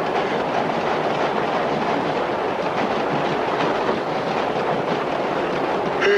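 Subway train in motion, heard from inside the car: a steady rumble and rattle of wheels on rails, with faint rhythmic clicks from the rail joints.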